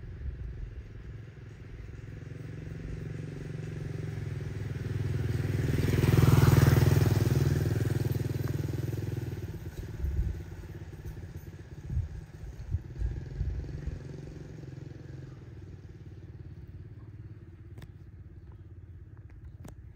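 A motor vehicle passes by, growing steadily louder to a peak about six seconds in and fading away by about ten seconds. A few short knocks follow.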